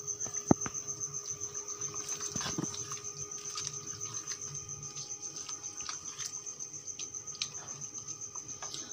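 A silicone spatula stirring keema and kachnar in a nonstick wok, with soft scrapes and a few sharp clicks against the pan, the sharpest about half a second in. Behind it an insect chirps in a steady, fast, high-pitched pulse.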